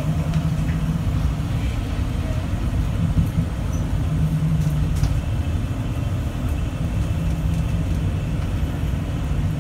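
Inside a Bombardier Innovia APM 100 people mover running along its guideway: a steady rumble of its rubber tyres on the concrete track, with a low hum that comes and goes.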